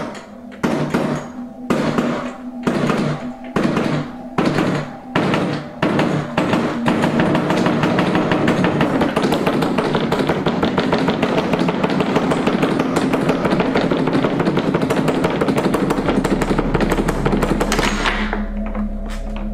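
Sharp knocks about once a second that quicken into a rapid, continuous rattle of taps, cutting off suddenly near the end over a steady low drone.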